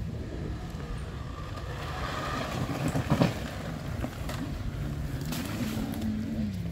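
Dirt bike engines running faintly. From about five and a half seconds in, one engine holds a steady idle.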